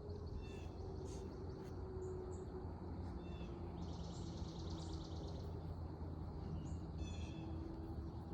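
Songbirds chirping in short calls, with a rapid trill lasting about a second halfway through and a quick run of notes near the end. A steady low drone runs underneath.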